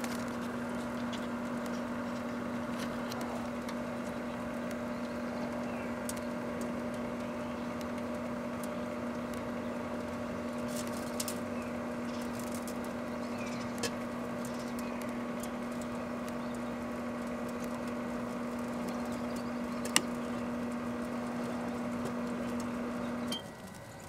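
A 1984 Kenmore microwave oven running with a steady hum while an easy button burns inside it, with a few sharp pops from the burning plastic, the loudest about 20 seconds in. The hum cuts off suddenly about a second before the end as the oven shuts off.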